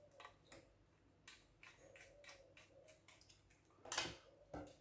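Faint small ticks of a screwdriver turning a screw into a graphics card's heatsink, then two louder knocks near the end as the screwdriver and card are handled on the tabletop.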